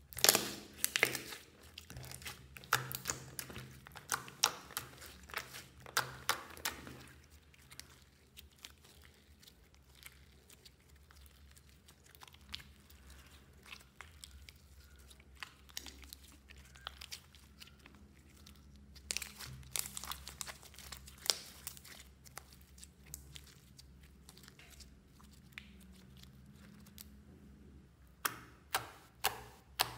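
Glossy slime being mixed with putty and kneaded by hand, giving wet crackles and clicky pops as air pockets squeeze out. The crackling comes in bursts: for the first several seconds, again about twenty seconds in, and near the end, with softer squishing between.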